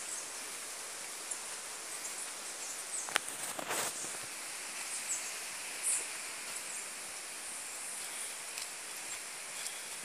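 Steady outdoor forest ambience: an even hiss with a thin high-pitched band on top, broken by a few short crackles and clicks about three to four seconds in and again near six seconds.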